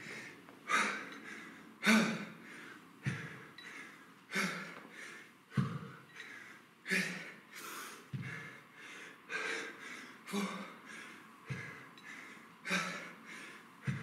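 A man breathing hard and exhaling sharply, about once a second, in rhythm with the reps of kettlebell dead high pulls.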